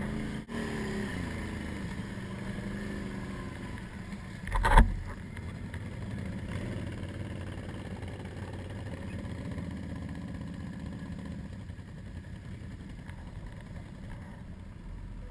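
Can-Am 800 ATV engine running, its pitch shifting in the first few seconds, then steadier. A loud thump comes about five seconds in.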